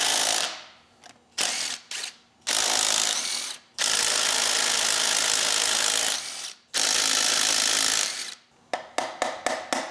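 Cordless DeWalt impact driver running in about six bursts, the longest about two and a half seconds, spinning the connecting-rod nuts off an old Willys F-head engine. Near the end comes a quick series of light clicks, about four a second.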